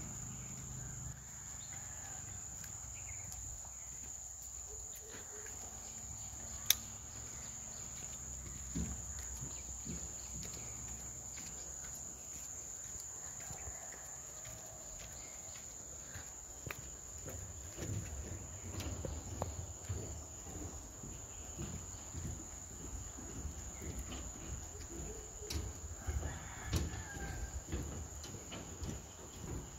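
Insects keep up a steady, high-pitched drone. From about two-thirds of the way in, irregular low thuds come from walking on the suspension bridge's steel checker-plate deck, and there is one sharp click about seven seconds in.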